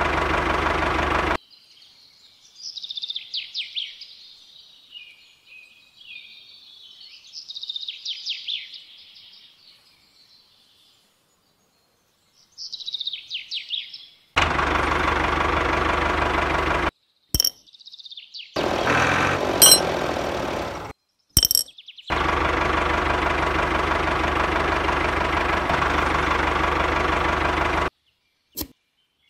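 Toy tractor's small electric motor running with a steady hum in three stretches, stopping and starting. Between them come several seconds of birds chirping and a few sharp clicks.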